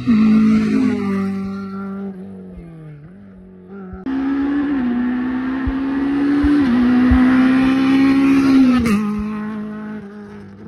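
Rally car engines at full throttle, one car after another. The first engine holds a high note, then drops in pitch and fades as the car passes. About four seconds in, a second engine cuts in loud, its note dipping twice, with a sharp click near the end.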